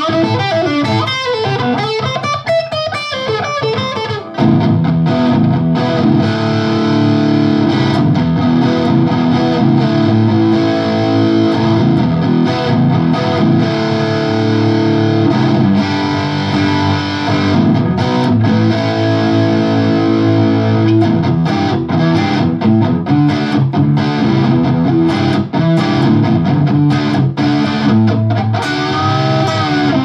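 Distorted electric guitar from a Grote semi-hollow, played through a Line6 Helix's high-gain Rectifier amp model and heard from a pair of Mackie Thump Go speakers in the room. A lighter passage of gliding notes gives way, about four seconds in, to thick sustained distorted chords.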